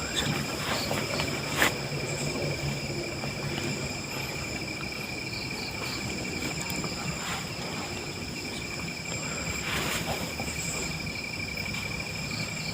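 Crickets chirping steadily in several high pitches, with two brief knocks, one about a second and a half in and one about ten seconds in.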